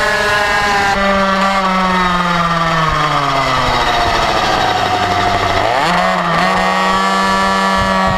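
Small two-stroke minimoto (pocket bike) engine at high revs. Its pitch sinks slowly for several seconds as it comes off the throttle, then climbs quickly about six seconds in as it picks up again.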